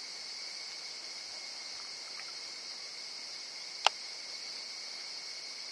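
Steady insect chorus, a shrill high drone with a fainter lower tone beneath it. A single sharp click sounds a little before four seconds in.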